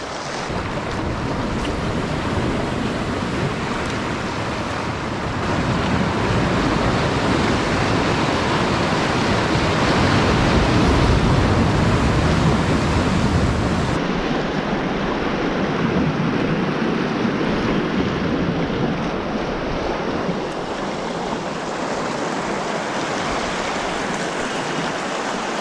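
Sea surf: waves washing in and breaking against shoreline rocks, a steady rush of water.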